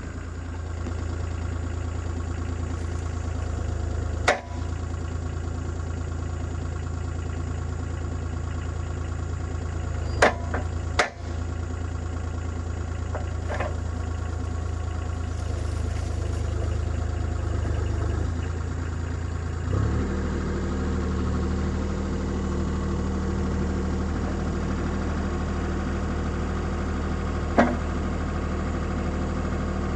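CAT 303C CR mini excavator's diesel engine idling as it warms up. A few sharp clicks come through, and about twenty seconds in the engine's note changes and a steady higher hum joins the low drone.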